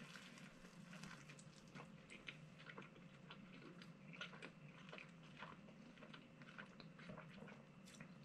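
Very faint chewing of a mouthful of sandwich: soft, irregular mouth clicks and smacks over a steady low hum.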